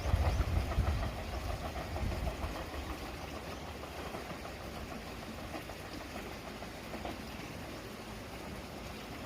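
Electric train running past on the line, a low rumble with fast, even clatter that dies away over the first few seconds as it recedes, leaving a faint steady hiss.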